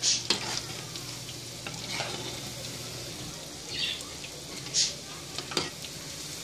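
Battered chicken pieces deep-frying in a pot of hot oil, a steady sizzle, with a slotted spoon knocking and scraping against the pot several times as the pieces are turned.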